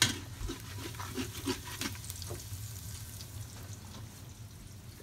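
Beaten eggs sizzling in hot bacon grease in an Instant Pot's inner pot on the sauté setting, while a utensil scrapes and stirs them. The stirring strokes come quickly for the first two seconds, then thin out.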